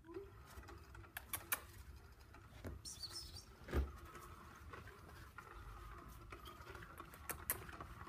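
A Maine coon cat playing with a toy: scattered light taps and clicks of paws and toy on the floor, with one louder thump a little before halfway through.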